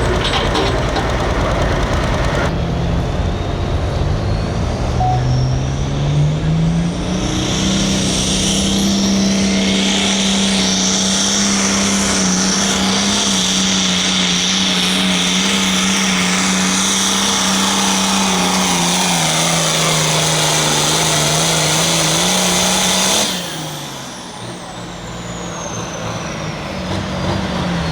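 Hot farm pulling tractor's diesel engine climbing to high revs and holding them under load through a pull, with a high whine over it, then shutting off abruptly about 23 seconds in as a falling whine trails away.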